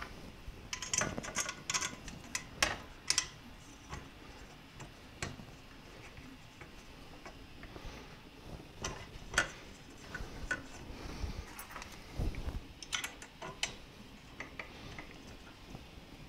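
Scattered light metallic clicks and clinks of hands and a small hex key working on a Creality CR-10S 3D printer's aluminium-extrusion frame and its fittings, in short clusters with quieter gaps between.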